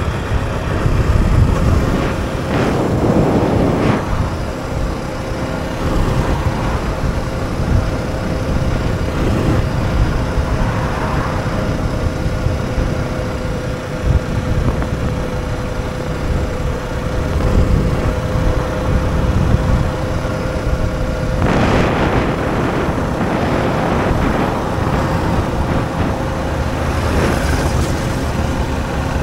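Yamaha R125's 125 cc single-cylinder four-stroke engine running at a steady note while riding, over rumbling wind and road noise. Two louder rushes of noise come through, a few seconds in and again about three-quarters of the way through.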